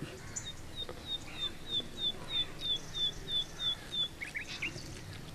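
A bird calling in a steady run of about a dozen short, falling notes, about three a second, followed by a few quicker, lower notes near the end.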